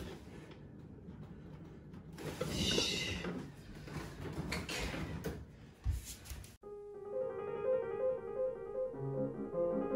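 Rustling and bumping as the fabric-covered sections of a bed are shifted and pressed into place, then about six and a half seconds in, an abrupt cut to a short instrumental music jingle of repeated notes.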